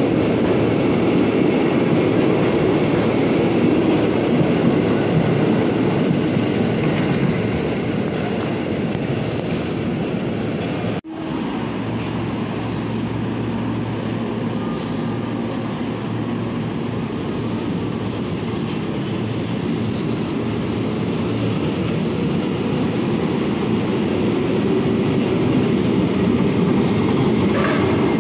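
Commuterline electric train running at the station, a steady loud train noise with a sudden brief dropout about eleven seconds in.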